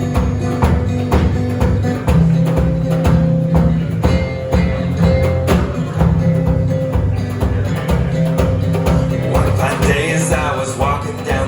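Live acoustic guitar strumming a steady country-folk rhythm with drums keeping the beat; singing comes in near the end.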